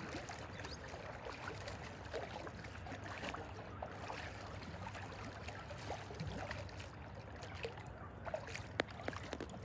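Light splashing and trickling of water at the lake edge from a hooked sturgeon being held in the shallows, with scattered small knocks and clicks, a few sharper ones near the end.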